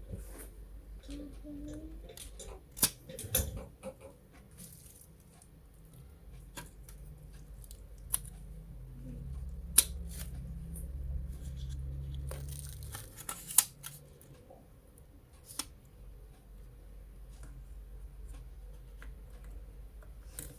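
Irregular small clicks, snaps and scrapes of objects being handled, with a few sharp clacks and a low hum for a few seconds in the middle.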